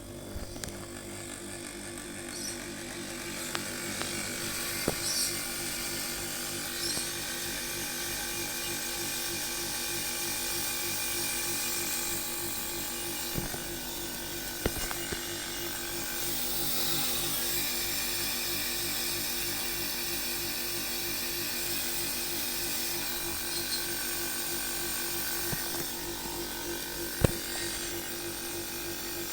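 Compressor of a small portable air conditioner running with its fans removed: a steady pitched hum with a rough, rapidly pulsing edge that builds over the first few seconds after starting and then holds. This is the odd noise the unit makes. A few sharp clicks come through, the loudest near the end.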